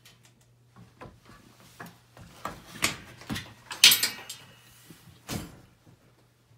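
Irregular knocks and clatters, loudest about four seconds in, with a last sharp knock a second or so later, over a faint steady hum.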